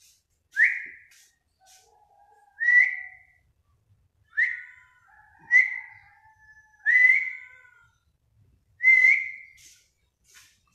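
A person whistling six short calls, each starting with a sharp click and sliding up into a briefly held high note, one every one and a half to two seconds, to call stray cats for feeding. Fainter, lower tones sound between the whistles.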